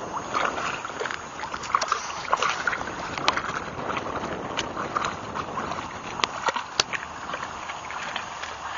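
A wolf lapping lake water, making a string of irregular wet splashes and clicks.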